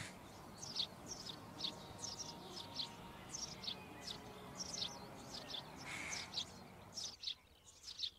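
Small songbirds chirping over and over: short, sharp, high falling chirps, several a second.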